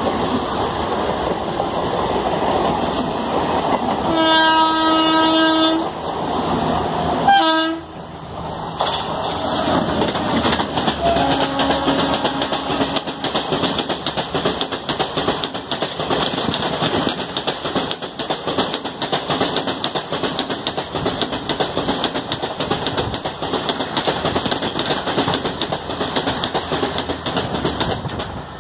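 A train horn gives one long blast about four seconds in and a short one a second or so later. The Garib Rath Express then passes close at high speed, its coaches rushing by with a fast clatter of wheels over the rail joints.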